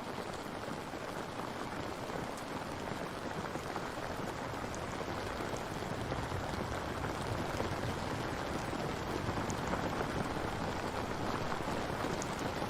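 Steady rain falling, a dense even hiss, with a few faint sharp drop ticks standing out here and there.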